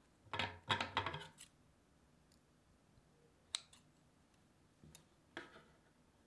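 Kitchen scissors being handled and snipping into soft bread dough. A short cluster of knocks and clicks with dull thuds comes near the start, a single sharp click about halfway, and a couple of soft snips near the end.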